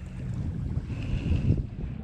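Wind buffeting the camera microphone, an irregular low rumble that gets louder about a second and a half in, over the sea at a calm shoreline.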